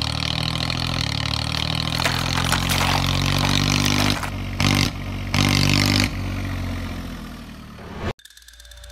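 Tractor engine running, revving up in three short bursts about four to six seconds in, then fading and cutting off suddenly near the end.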